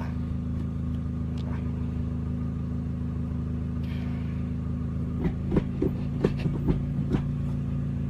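Toyota Corolla T-Sport's VVTL-i four-cylinder engine idling steadily. From about five seconds in comes a quick run of sharp clicks and clunks as the six-speed gear lever, fitted with a quick-shift kit and stiffened linkage bushes, is snapped rapidly through the gates.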